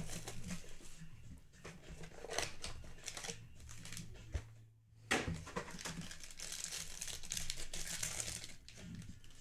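Foil pack of Mosaic football trading cards crinkling in the hands as it is handled and torn open, with a brief pause about halfway and a denser stretch of crinkling near the end.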